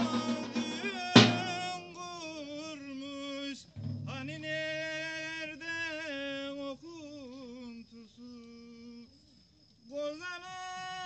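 A man singing a traditional Turkish folk song, mostly unaccompanied, in long held notes with wavering ornaments. One loud davul drum stroke comes about a second in, and the voice breaks off briefly near the end before taking up the next phrase.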